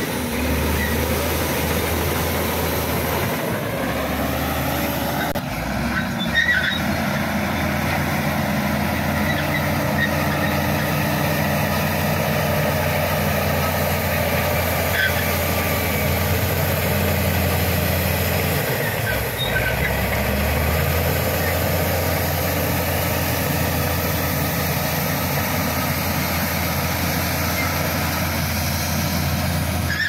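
Shantui SD16 crawler bulldozer's diesel engine running under load while it pushes gravelly soil, with its note dipping briefly twice. A few short metallic clinks sound over it.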